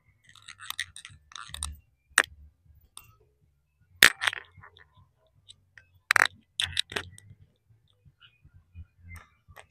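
A cloth rag rubbing by hand over a car's painted door, with a scratchy patch of rubbing about a second in, followed by a few scattered sharp clicks.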